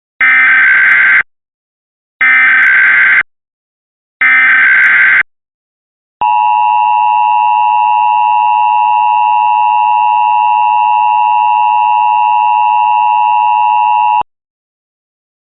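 Emergency Alert System tones: three one-second bursts of digital SAME header data, a second apart, then the steady two-tone attention signal for about eight seconds, cutting off suddenly. Together they open an emergency alert that interrupts a TV broadcast.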